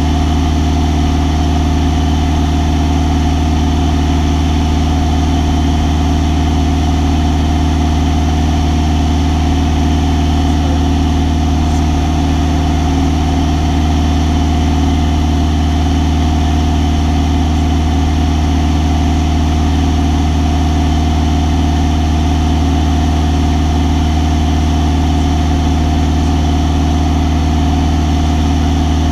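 Single-engine light aircraft's piston engine and propeller running steadily in flight, a constant loud drone heard from inside the cockpit.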